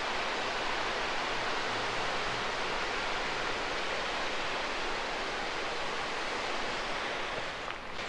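The River Ogwen rushing over rocks and riffles: a steady, even rush of water.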